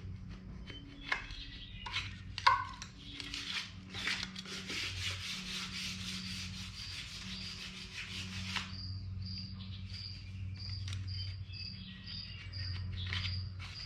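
Emery cloth rubbed rapidly back and forth on the Chevy 350's oil pan gasket surface, scrubbing at stuck old gasket material, with a sustained scrubbing run from about three to eight and a half seconds in. The cloth is cutting poorly, which the worker puts down to oil or grease clogging its grit.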